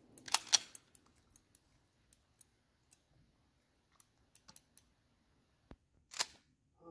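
Metallic clicks and clacks of a firearm's action being worked by hand. Two sharp clacks come about half a second in, then scattered small ticks, and a short louder rasp about six seconds in.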